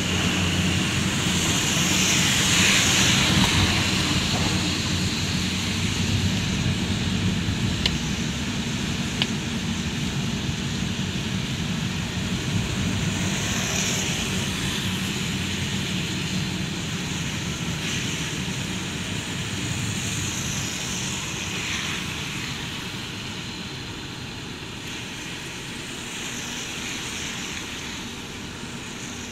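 Car cabin noise on a wet road: a steady low engine and road hum with a hiss of tyres on wet pavement. Swishes swell and fade every several seconds, and the noise eases off near the end as the car slows in traffic.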